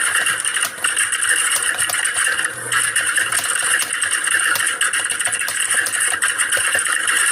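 Rapid computer-keyboard typing, many keystrokes clattering so densely they merge into a continuous chatter, like a hall of typists working at once. The clatter dips briefly just under a second in and again about two and a half seconds in.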